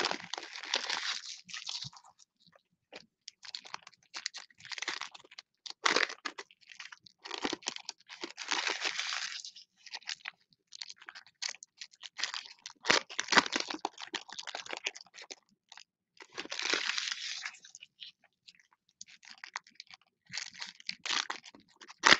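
Foil trading-card pack wrappers crinkling and tearing as they are ripped open by hand, in repeated crackly bursts of a second or two with short pauses between.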